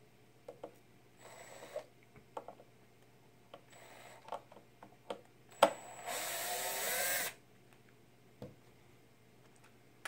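DeWalt cordless drill/driver with a T10 security bit backing a screw out of the back of a TiVo Bolt's plastic case: two short whirs, then a longer run of about a second, about six seconds in, whose pitch rises, with sharp clicks of the bit and screw in between.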